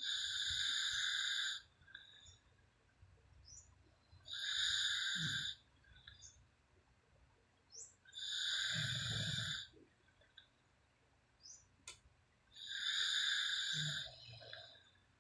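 A sleeping woman snoring, each breath a high, hissing rasp of about a second and a half, four times at an even pace of about one every four seconds.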